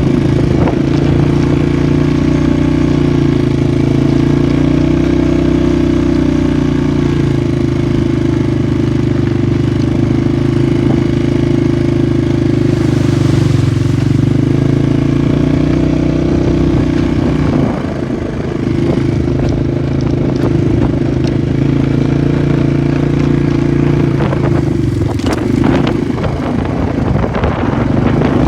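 Polaris 450 ATV engine running at a steady throttle while riding, easing off briefly about two-thirds of the way through, then picking back up. Rattles and knocks from the machine over rough ground come in near the end.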